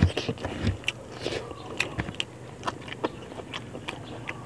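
A person chewing a mouthful of rice and fish in coconut sauce with the mouth open: wet smacking clicks several times a second, a little louder in the first second.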